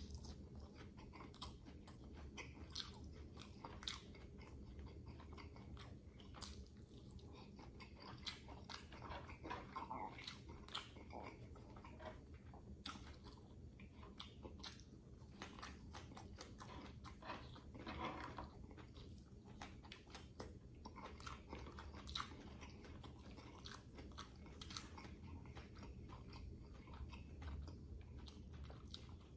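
A person chewing and crunching food: irregular crisp bites and mouth clicks, with a steady low hum underneath.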